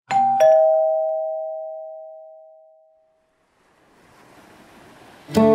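Two-note ding-dong doorbell chime, the second note lower, both ringing out and fading over about three seconds. A faint rising hiss follows, and strummed acoustic guitar music starts near the end.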